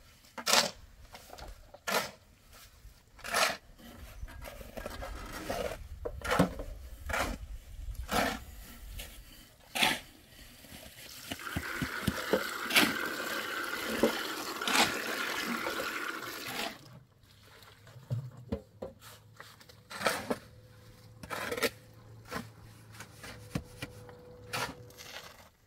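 Metal cooking pots and utensils being handled: sharp knocks and clanks every second or two. For about five seconds in the middle a steady rushing sound takes over, then the knocks return.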